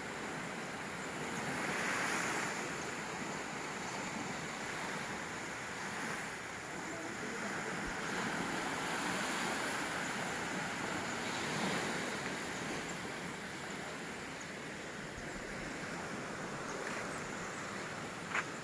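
Small waves washing onto a sandy beach, the surf noise swelling and easing every few seconds, with some wind on the microphone. A single sharp click near the end.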